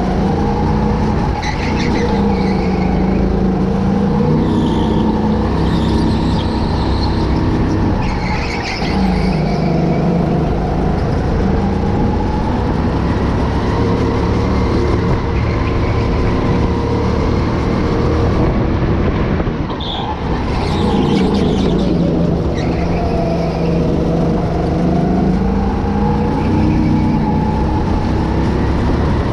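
Go-kart engine running hard through a lap, its revs dropping and climbing again several times as it slows for corners and accelerates out.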